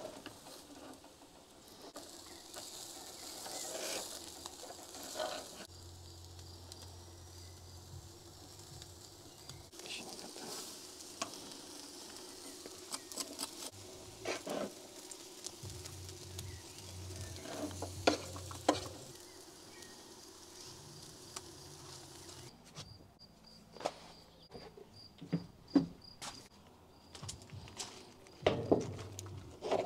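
Meat sizzling over a charcoal grill against a steady outdoor background, with scattered sharp clicks and knocks, the loudest near the end.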